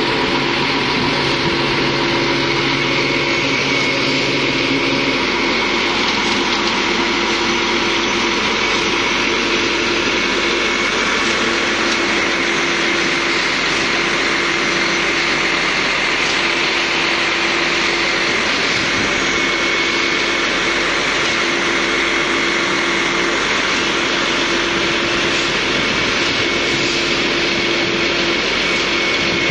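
Concrete boom pump truck running: a steady, loud engine noise with a high whine.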